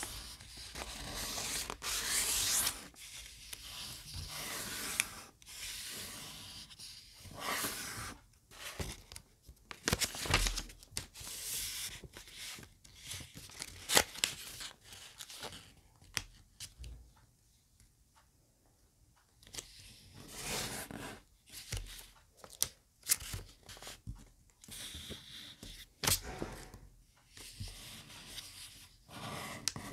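A sheet of origami paper rustling and crackling as it is folded by hand and its creases are pressed flat, in irregular strokes with a brief lull a little past halfway.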